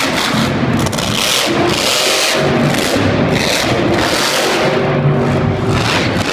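Monster truck's supercharged V8 engine revving, its pitch rising and falling as the truck drives across the dirt and climbs a mound.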